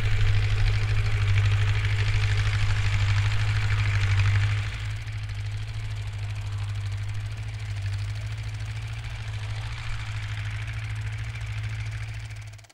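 Steel-wheeled farm tractor's engine running steadily with a strong low hum, dropping in level about four and a half seconds in and cutting off abruptly at the end.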